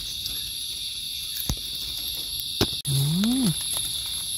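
Steady high-pitched drone of forest insects, with a couple of small clicks as a knife trims a mushroom's stem. About three seconds in, a man gives a short hum that rises and then falls.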